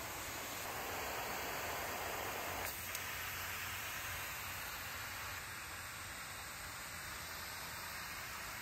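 Water spraying steadily from a multi-pattern garden hose nozzle, a hiss. About three seconds in there are a couple of clicks and the hiss changes as the nozzle is switched from a flat spray to a mist.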